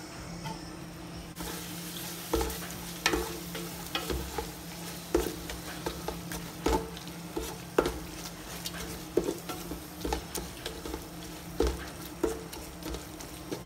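Onion-tomato masala frying and sizzling in an aluminium kadai while a wooden spatula stirs it, knocking against the pan roughly once a second. The sizzle comes in about a second in.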